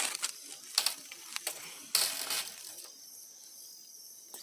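A few sharp clicks and knocks in the first two seconds or so, like things being handled at a campfire. After that, crickets trill faintly and steadily.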